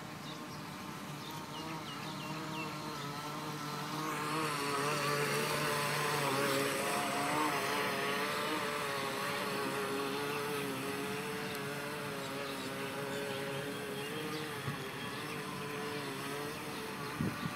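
Hobbyking Princess RC speedboat's electric motor whining as the boat runs across the water, its pitch wavering. About four seconds in, a hiss of water joins it and the sound grows louder as the boat passes close and turns, then slowly fades as it heads away.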